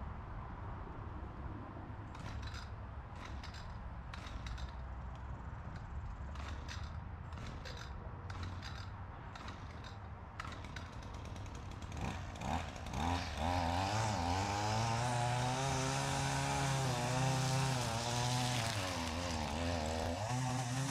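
Small gasoline engine with a low rumble and scattered clicks at first, then about twelve seconds in speeding up to a loud, steady high-speed run whose pitch wavers up and down.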